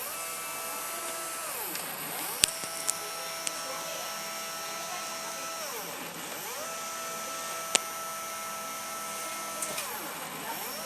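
Wantai CNC stepper motors running under their driver, a pitched whine that rises quickly as they accelerate, holds steady for a few seconds, then falls as they decelerate, in about four moves. A few sharp clicks sound during the moves, the loudest one about two and a half seconds in.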